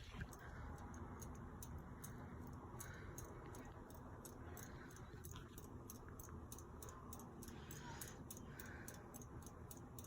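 Hunter Savoy 52-inch ceiling fan running on low speed: a faint, steady motor hum with a quick, regular light ticking.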